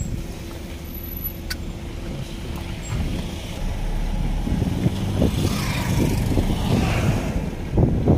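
Vehicle driving along a road, a steady low engine and road rumble that grows louder about halfway through. Near the end it comes with gusty low thumps.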